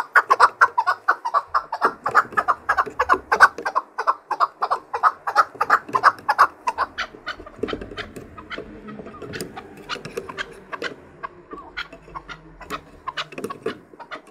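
Chukar partridge calling: a rapid run of harsh chuck notes, about five a second, loud for the first half, then tailing off into softer, scattered notes. It is the call a male gives to challenge a rival.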